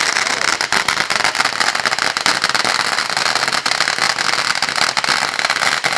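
Sassy Cat consumer firework going off: a loud, dense, continuous crackle of many rapid small pops.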